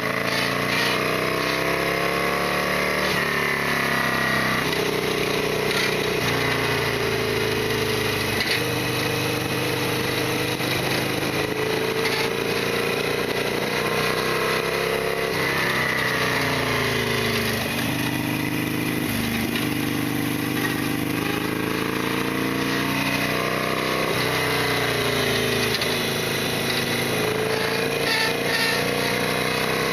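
Harley-Davidson Sportster XL1200R's air-cooled V-twin engine running under way. The revs climb and drop back at each gear change, hold steadier while cruising, fall off as the bike slows about two-thirds of the way through, then climb again near the end.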